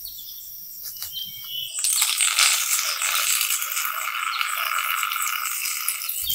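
Sound effect for an invisible force-field boundary lighting up: a steady hiss with held tones in it that comes in suddenly about two seconds in, after a few faint clicks.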